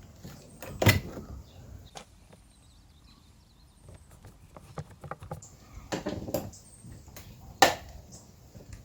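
Plastic clicks and knocks as a car door's window switch is unplugged from its wiring connector and the door trim is handled by hand. The loudest clicks come about a second in and near the end, with a run of smaller knocks around six seconds.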